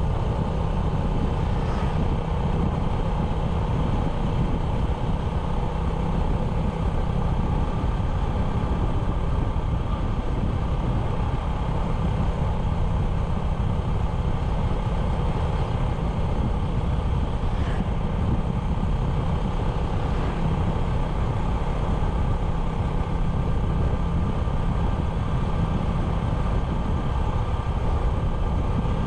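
97cc motorbike engine running steadily while riding at an even speed, a constant low hum with no revving up or down.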